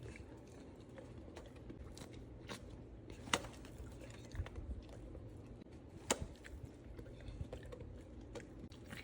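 A dog chewing calming chews: quiet, irregular crunching and clicks of teeth, with two sharper clicks about three and six seconds in.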